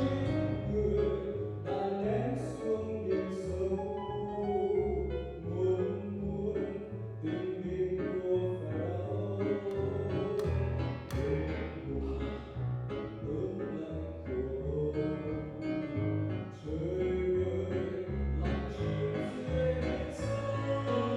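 Music: a hymn sung over keyboard accompaniment, the voices carrying the melody above steady bass notes.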